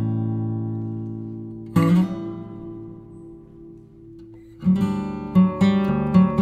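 Background music: acoustic guitar chords strummed and left to ring and fade, falling into a quicker strummed rhythm near the end.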